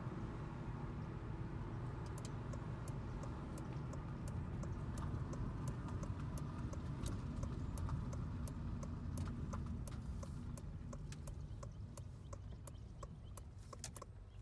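Car-interior driving noise: a steady low rumble of engine and tyres on the road, with a scatter of sharp, irregular clicks over it. It gets quieter over the last few seconds.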